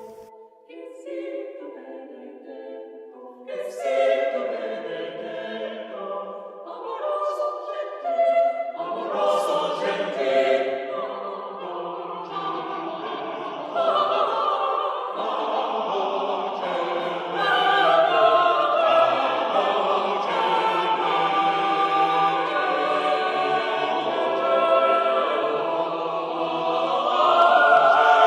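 Choral music: many voices singing sustained chords in harmony, starting sparse and quiet and growing fuller and louder as it goes.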